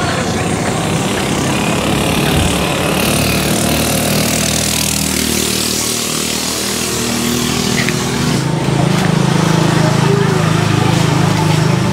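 Steady drone of a running motor vehicle's engine under a hiss of rushing air, growing a little louder about eight seconds in.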